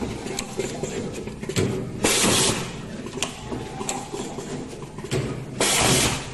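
Automatic wire stripping, twisting and soldering machine running its cycle: a run of mechanical clicks and knocks, broken by a short loud hiss about two seconds in and again near the end, the cycle repeating every three and a half seconds or so.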